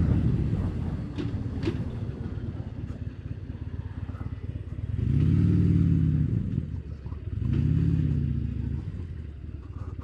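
Harley-Davidson Dyna Street Bob's V-twin engine through Vance & Hines slip-on exhausts, running low and easy at first. Twice the engine speed rises and falls again, about five and about seven and a half seconds in.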